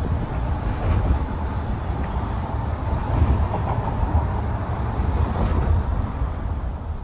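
Road rumble and wind buffeting the microphone while riding in the open back of a moving vehicle at road speed: a steady noise with a heavy low rumble.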